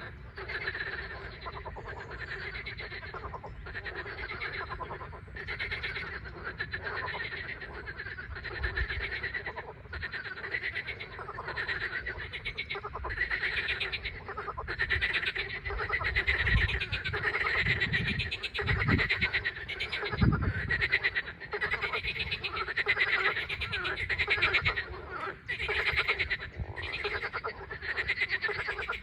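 A chorus of frogs calling continuously, many rapid pulsed croaks overlapping without a break. A few low thumps sound about two-thirds of the way in.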